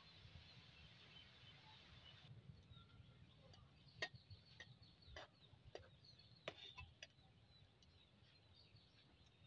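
Spatula knocking about five times against an iron wok while stirring noodles in water, sharp quiet clicks over a faint low hiss.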